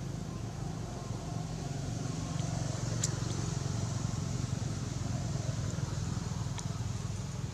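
Steady low rumble of a motor vehicle engine running, with a sharp click about three seconds in and a fainter one later.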